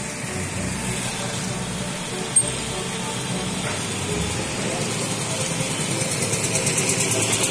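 Cars driving through a flooded road, tyres swishing and splashing through standing water over steady traffic noise. A single sharp click comes about two and a half seconds in, and a fast, even pulsing grows louder near the end.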